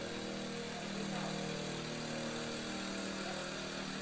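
A steady low mechanical hum, with faint voices behind it.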